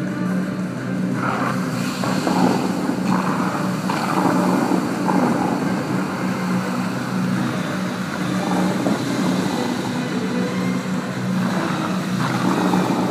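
Water jets of a large musical fountain spraying up and splashing back into the lake: a steady rushing of water that swells a little as the jets change, with a low steady hum underneath.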